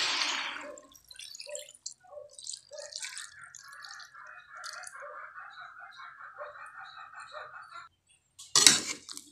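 First-press coconut milk poured from a plastic container into a pot of sautéed breadfruit, trickling and dripping, while the frying sizzle dies away in the first second. A louder knock near the end.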